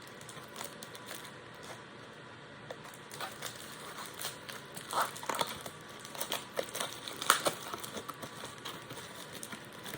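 Packaging being handled and opened by hand: irregular crinkling and crackling, starting about three seconds in, with the sharpest crackles around five and seven seconds in.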